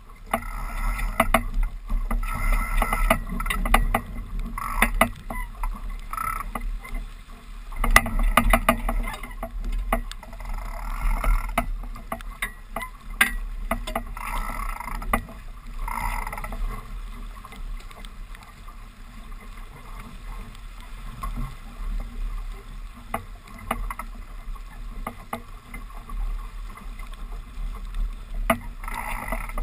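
Water rushing and splashing along the hull of a 420 sailing dinghy under way, with irregular sharp slaps of waves against the boat over a steady low rumble.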